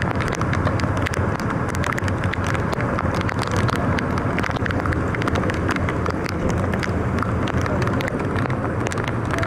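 Heavy rain falling, with many small drops tapping close by, over a steady low rumble.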